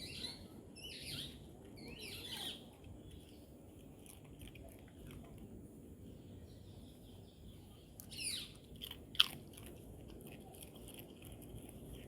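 Dog chewing and crunching its food, a few separate crunches near the start and again around eight seconds in, with one sharp click about nine seconds in.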